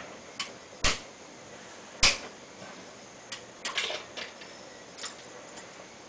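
Irregular clicks and knocks from hand work on air-conditioner piping and its ceiling hanger: two sharper knocks about one and two seconds in, the second the loudest, among lighter clicks.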